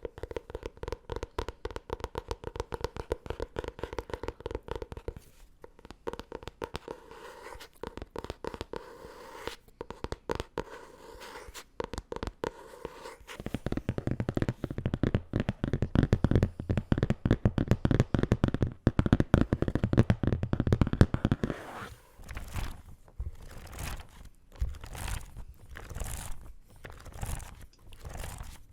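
Fast tapping on a book, many taps a second, growing louder and deeper about halfway through. In the last several seconds it gives way to slower, separate rustles of paper.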